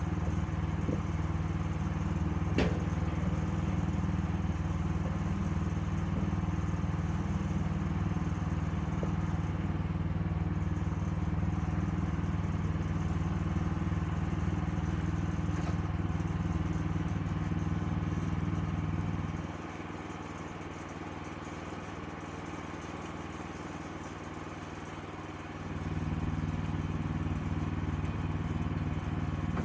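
Sawmill engine running steadily. Its low hum drops back for about six seconds about two-thirds of the way through, then picks up again. A single sharp click comes a couple of seconds in.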